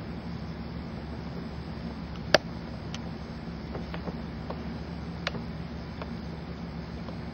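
Steady low hum of room equipment, fan-like, with a few sharp taps scattered through it, the loudest a little over two seconds in.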